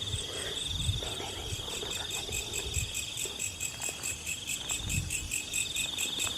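Night insects calling: a steady high cricket-like trill with a second insect pulsing quickly and regularly over it, and a few soft low thumps now and then.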